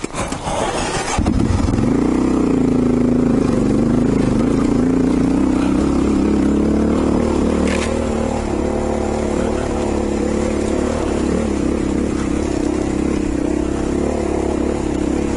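Honda XR650 single-cylinder dual-sport motorcycle engine running under load on a trail ride. After a brief dip at the start it pulls steadily, with a short rise in revs about two seconds in and one brief click-like knock near the middle.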